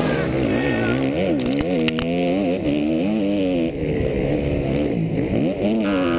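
Yamaha YZ250F four-stroke single-cylinder dirt bike engine being ridden hard, its revs repeatedly rising and falling through the throttle and gear changes.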